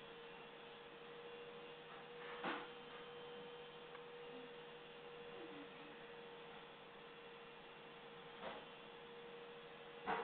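A faint, steady single-pitched hum, broken three times by a short soft noise.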